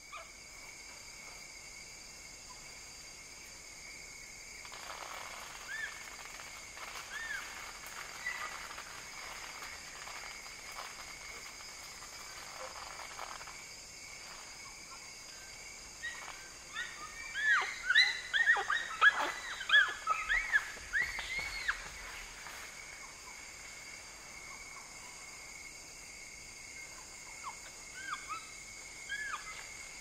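A group of bonobos (pygmy chimpanzees) calling: high-pitched arching hoots, scattered at first, then a dense, loud burst of overlapping calls about halfway through, thinning out again near the end, over a steady high-pitched background drone.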